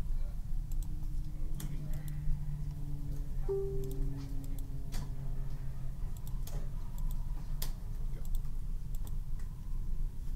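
Irregular light clicks and taps over a steady low hum, with a few faint held tones in the first half.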